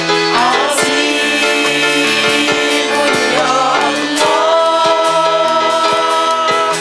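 A group of women singing a worship song together with a live band of accordion, electric guitar, keyboard and drums. Near the middle they move into a long held note that lasts to the end.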